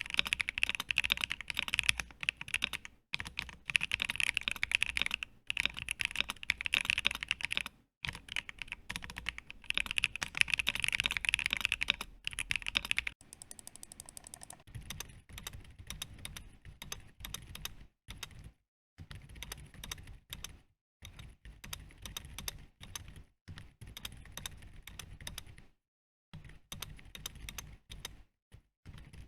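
Typing on a Monsgeek M7W mechanical keyboard for a before-and-after switch test. First come loud, clacky keystrokes from its stock Akko linear switches, then a little under halfway through much quieter, muffled keystrokes from lubed Akko Penguin silent tactile switches.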